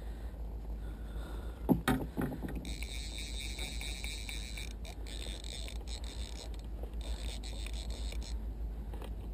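A few sharp knocks about two seconds in, the loudest sound, then a fly reel ratcheting in two spells as line is wound in on a hooked bowfin.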